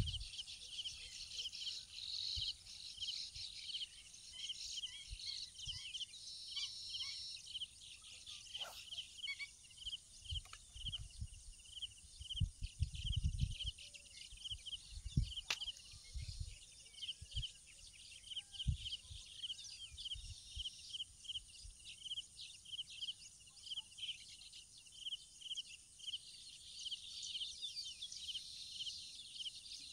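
Insects chirping outdoors: a steady, rhythmic pulsing chirp over a continuous high-pitched whine. A few low thumps come in around the middle.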